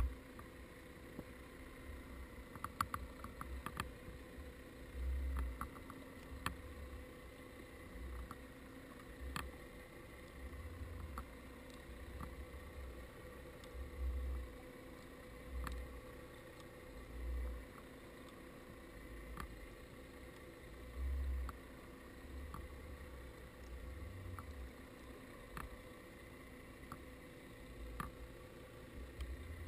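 Underwater sound through a GoPro's waterproof housing: low muffled thuds and rumbles every few seconds as the housing moves in the water, with faint scattered clicks over a faint steady hum.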